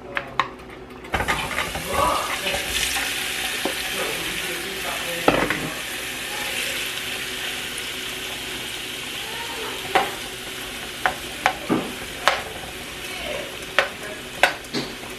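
Seasoned shrimp sizzling in hot grape seed oil in a frying pan, the frying hiss starting suddenly about a second in as they hit the oil. From about ten seconds on, a metal utensil clicks against the pan as the shrimp are turned.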